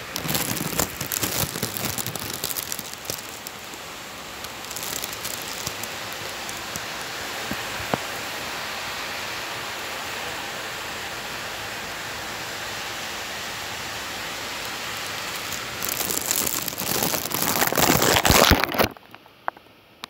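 Heavy rain, a steady hiss, louder and crackling at the start and again towards the end. It drops away abruptly near the end, leaving a few faint clicks.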